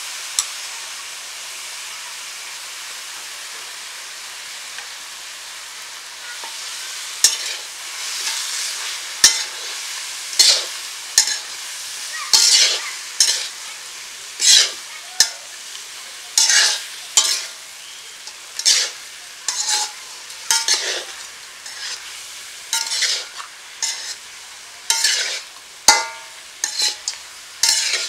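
Fish head pieces sizzling in oil in a round metal pan, with a metal spatula scraping and stirring against the pan. A steady sizzle at first, then scraping strokes about once a second from about seven seconds in.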